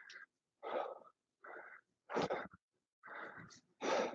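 A man's short, forceful breaths, five in a row, about one a second, pushed out with each pull of a resistance-band row.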